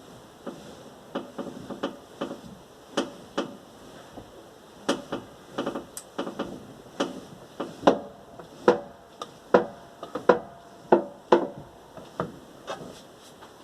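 Repeated sharp knocks from under the hood of a 1997 VAZ 21099 while the steering wheel is turned, coming irregularly about one or two a second, some with a short metallic ring. The owner suspects a worn-out steering rack.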